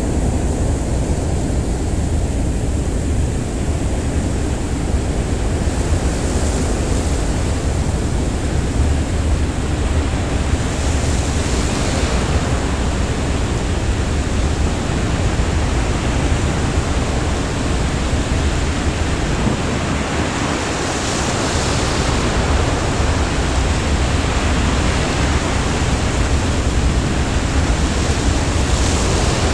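Steady rushing of wind and sea passing a ferry under way, with a heavy low rumble. The hiss swells briefly about four times, like waves breaking along the hull.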